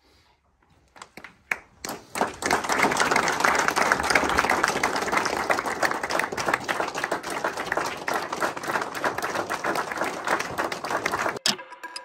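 Audience applauding: a few scattered claps at first, building into steady applause that cuts off suddenly near the end.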